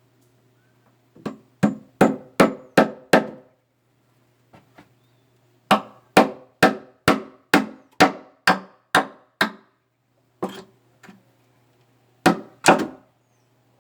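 Hammer blows on wood, struck in steady runs of about two or three a second: six blows, a few light taps, a run of about nine, then two final blows near the end, each with a short ringing tone.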